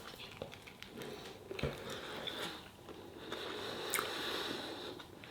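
A person biting and chewing food close to the microphone, with a few small clicks and a soft knock about a second and a half in.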